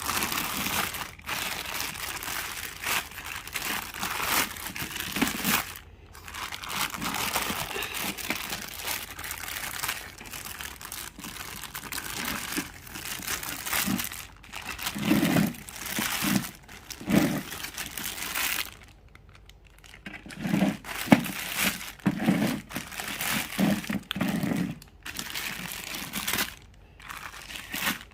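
Plastic packaging crinkling and rustling as it is handled, with irregular crackles throughout, while the parts of a cat drinking fountain are unwrapped.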